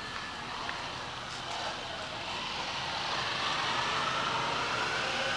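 A vehicle running, growing gradually louder over a few seconds.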